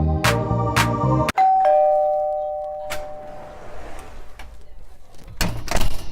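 Music with a beat cuts off about a second in, and a two-tone ding-dong doorbell chime follows: a higher note, then a lower one, fading over a couple of seconds. A short burst of noise comes near the end.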